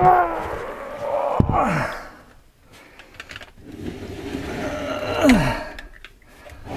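A man's straining grunts and groans, each falling in pitch, three times as he heaves a heavy battery into place, with a sharp knock about a second and a half in.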